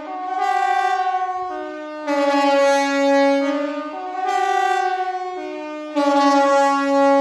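KTG-10 compressed-air siren sounding the general alarm: a loud multi-tone wail that steps back and forth between a lower chord and a higher one about every two seconds.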